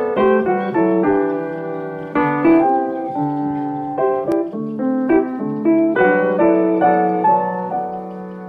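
Background piano music: notes and chords struck one after another and left to ring out.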